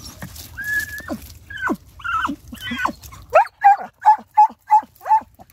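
Hunting dog whining and yelping at a rock crevice where a cornered tegu lizard has hidden out of reach. The first few calls are high and drawn out; near the end comes a quick run of about six short, sharp yelps.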